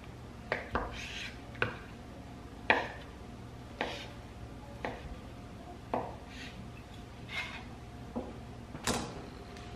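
Knife chopping cooked chicken on a wooden cutting board: sharp knocks of the blade on the board about once a second, with softer slicing sounds between. Near the end the knife scrapes the chopped chicken off the board into the pot.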